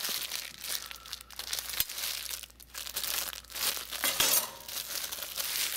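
Clear plastic wrap crinkling as wrapped stainless steel kitchen utensils are handled and unwrapped, with a couple of light knocks.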